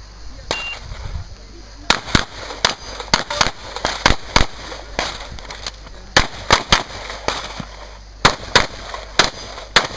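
Rapid 9mm pistol fire from a CZ 75 SP-01 Shadow during an IPSC stage: a string of sharp shots, often in quick pairs, starting about two seconds in and running on with short breaks while the shooter moves between ports.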